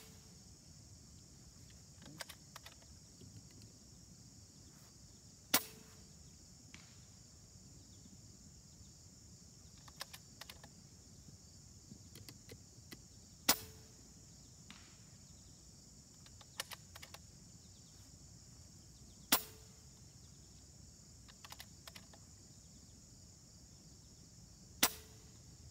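Regulated .22 Benjamin Marauder field target PCP air rifle firing four shots, each a sharp crack, several seconds apart. Between shots come two light clicks of the bolt being cycled to load the next pellet, over a steady high insect chirring.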